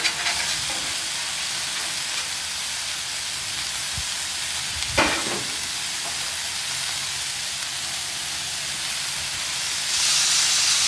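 Vegetable kabobs sizzling steadily in oil on a hot flat-top griddle, with one short, sharp sound about five seconds in. Near the end a raw steak skewer is laid on the hot steel and the sizzle jumps louder and brighter.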